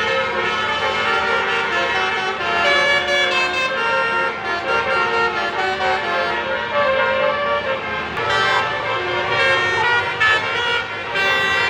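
A bus's multi-trumpet 'telolet basuri' air horn playing a melody, its tones stepping from note to note without pause.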